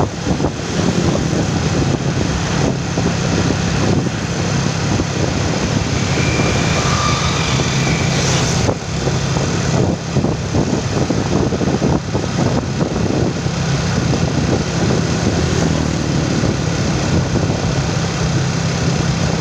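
Motorcycle engine running steadily while riding along a road, with a constant rush of wind and road noise over it.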